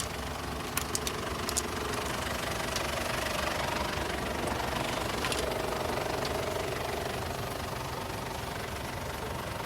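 Diesel engine idling steadily, with a few sharp clicks about a second in.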